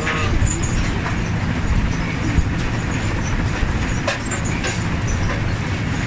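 Potato harvester running: a steady low mechanical drone from the machine, with a few short knocks as potatoes tumble along the conveyor.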